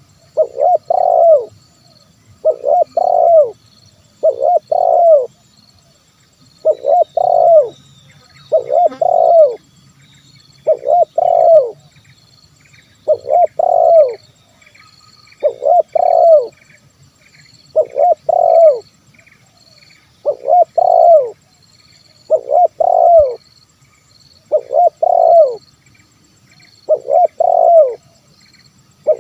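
Spotted dove (tekukur) cooing, repeating its phrase of a few quick coos about once every two seconds. Faint high chirping runs behind it.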